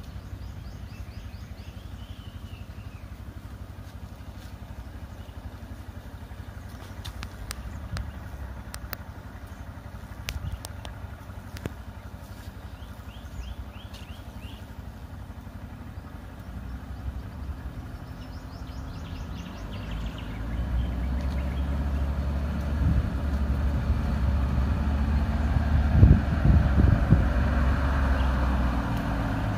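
Road vehicle engines idling and creeping along, with a van's engine growing much louder from about twenty seconds in as it draws up close. A few bird chirps come near the start and again about halfway through.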